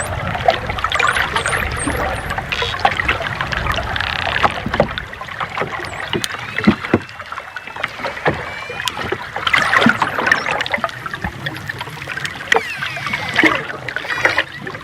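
Underwater recording of dolphins: rapid clicks throughout, with whistles gliding up and down at several points. A low rumble sits under the first few seconds.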